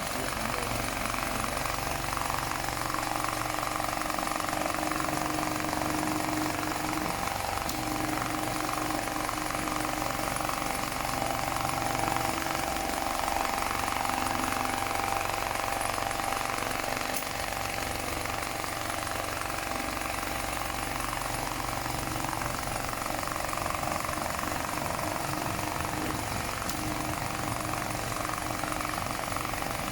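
BAS-342GXL large-area CNC programmable pattern sewing machine stitching at speed: a fast, steady mechanical needle rattle that runs evenly throughout.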